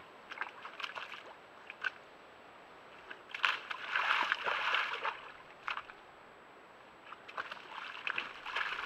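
Bull elk moving through a muddy wallow: its hooves and body splash and slosh in the mud and water, in scattered splashes with a longer stretch about three and a half seconds in and again near the end.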